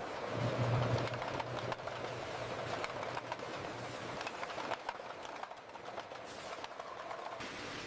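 Canning-line machinery running, with rapid irregular clicks and clatter and a low hum that fades out about four seconds in.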